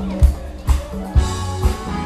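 Band music played loud over a PA, driven by a steady kick-drum beat about two beats a second, with guitar and other instruments sustaining notes above it.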